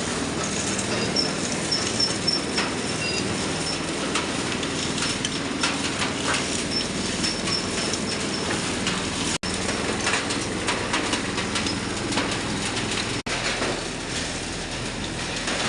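Compost sieving machine running: a steady mechanical rattle with many small clicks, and a thin high squeak now and then. The sound cuts out for an instant twice, about nine and thirteen seconds in.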